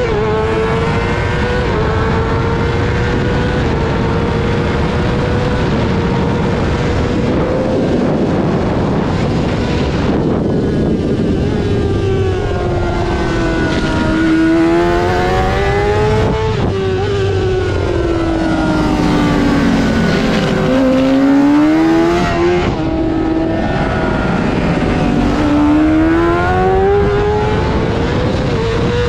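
Honda CBR600 inline-four race engine at high revs. The engine note holds high, drops twice, then climbs again as the bike comes off the throttle and gets back on it through the corners, with a steady rush of noise underneath.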